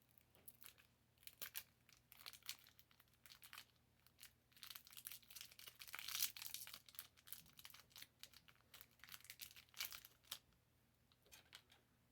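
Hi-Chew candy wrapper crinkling as a piece is unwrapped: a run of quick, faint crackles, thickest about halfway through, stopping about ten seconds in.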